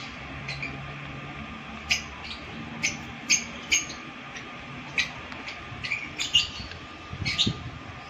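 Lovebirds chirping: about a dozen short, sharp, high calls at irregular intervals.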